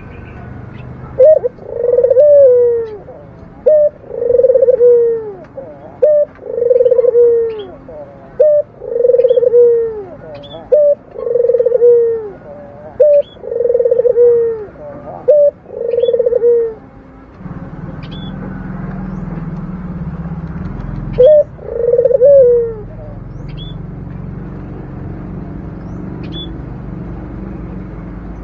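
Barbary dove (local Indonesian puter dove) cooing: a short clipped note followed by a drawn-out coo, repeated seven times about every two seconds, then once more after a pause of a few seconds.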